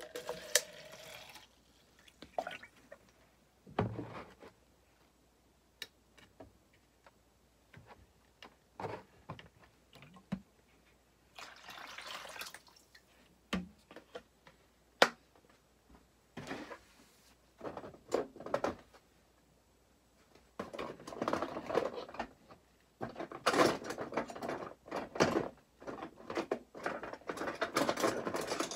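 Workbench handling sounds: scattered clicks and knocks, a short pour of liquid from a plastic jug about twelve seconds in, and a busy run of rubbing, rustling and knocking over the last eight seconds as items in a tub of rust-soaking liquid are worked on.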